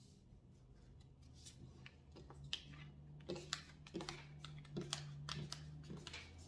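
Tarot cards handled on a tabletop: light, irregular clicks and taps as cards are set down and slid together, growing busier from about two seconds in. A faint low hum runs underneath.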